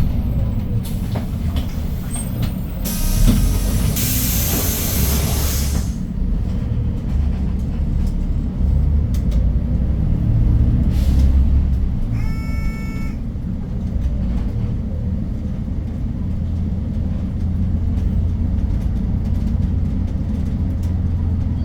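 The C6AF CNG engine of a 2015 Hyundai New Super Aerocity city bus running, with a low drone that shifts as it pulls through the gears. A few seconds in, compressed air hisses out loudly for about three seconds, and about twelve seconds in a short electronic beep sounds.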